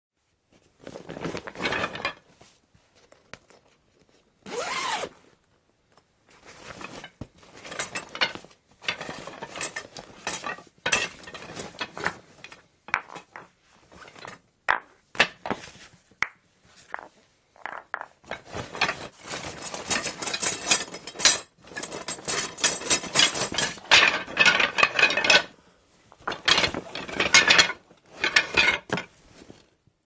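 Rummaging through a croquet bag: the gear inside clatters, knocks and rubs in irregular bursts with short pauses, busiest in the second half.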